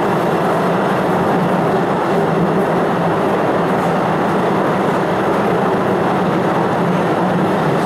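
Postojna Cave tourist train running along its track, heard from a seat in an open car: a steady running noise of wheels on rails.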